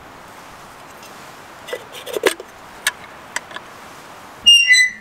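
Metal clinks and knocks of a coffee pot being handled on a camp stove over a steady hiss, then near the end a short, loud squeak that steps down in pitch.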